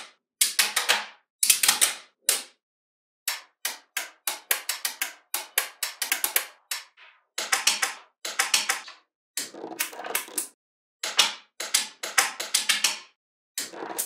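Small magnetic balls clicking together as they are snapped into place: about a dozen quick runs of sharp clicks, separated by short silences.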